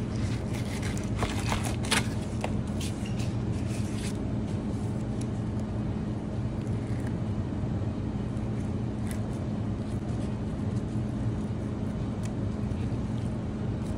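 Steady low machine hum with a constant low tone, and a few light clicks and taps of a fillet knife against a plastic cutting board in the first few seconds.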